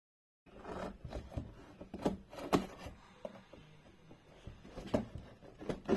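Packaging of a boxed toy blaster being handled and opened by hand: scattered clicks, knocks and rustling, starting about half a second in.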